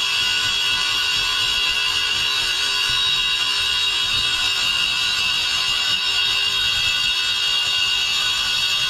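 Makita GA9020 230 mm angle grinder with a diamond blade cutting into concrete under load: a steady, high-pitched whine over a gritty grinding hiss.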